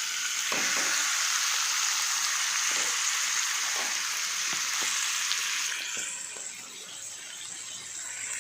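Spiced chicken mixture poured into a pot of hot oil, sizzling loudly, with a few knocks of the pieces and the spoon against the pot. The sizzle eases about six seconds in.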